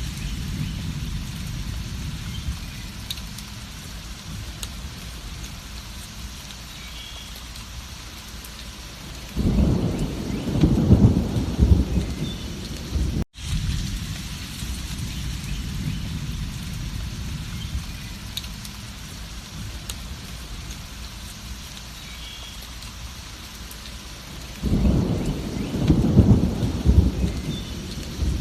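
Steady rain with a low background rumble, and two rolls of thunder lasting a few seconds each: one about ten seconds in and one near the end. About thirteen seconds in the sound cuts out for an instant and the same stretch of rain and thunder starts over, so the recording is looped.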